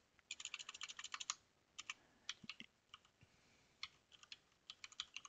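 Faint computer keyboard typing: a quick run of keystrokes about a second long, then slower scattered key presses as a typo is deleted and retyped.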